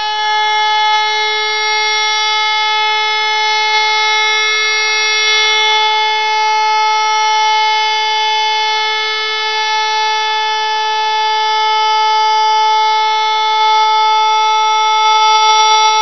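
HLS 273 compressed-air high-performance siren sounding the all-clear (Entwarnung) signal: one steady, unbroken tone that neither rises nor falls, with many overtones above it. It still sounds a little hoarse.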